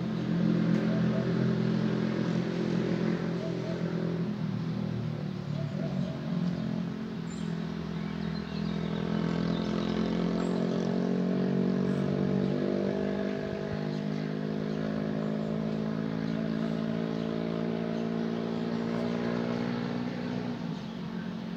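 Iveco Eurocargo street sweeper truck running: a steady engine drone that shifts in pitch a few times.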